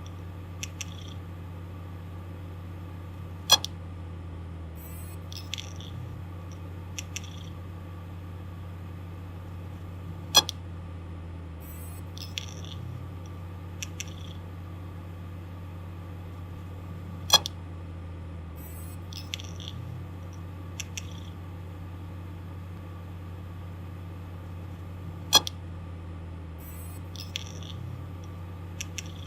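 Damaged hard disk drive spinning with a steady low hum and a loud sharp click about every seven seconds, with fainter ticks and short high chirps in between, a repeating cycle of malfunction noise.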